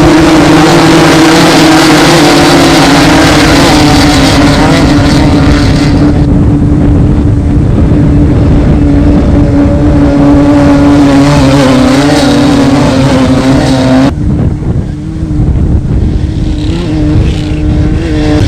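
Off-road desert race vehicle's engine running loud at high, steady revs. The note cuts off abruptly about fourteen seconds in, giving way to a rougher, uneven engine sound.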